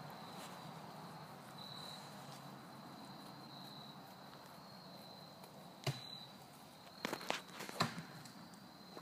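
A steady high insect buzz, with a few sharp cracks and rustles of footsteps on twigs and leaf litter, one about two-thirds of the way in and several close together near the end.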